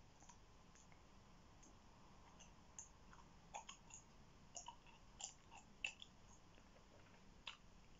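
Quiet, close-miked gum chewing: scattered soft wet clicks and smacks of the mouth, a cluster of them in the middle and one more near the end.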